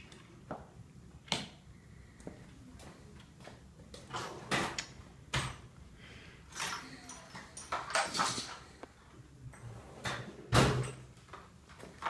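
Irregular knocks and clatters of tools and engine parts being handled in a garage workshop, with the loudest knock about ten and a half seconds in.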